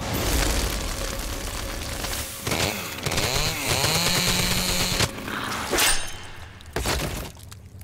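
Cartoon booby-trap sound effect: a loud saw-like grinding of blades shredding a character. It cuts off about five seconds in, and a couple of sharp hits follow.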